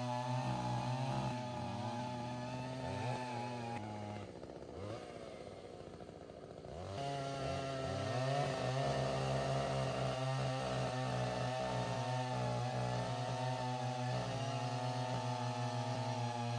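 Earth auger's 68cc petrol engine running at high speed. About four seconds in it drops to idle, and about three seconds later it revs back up.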